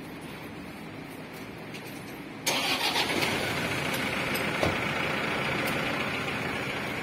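A vehicle engine starting about two and a half seconds in, then running steadily.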